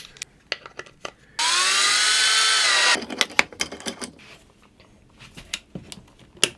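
Cordless drill-driver runs once for about a second and a half, its whine rising in pitch as it spins up and then holding steady. Small clicks and clinks of washers, screws and plywood parts being handled come before and after it.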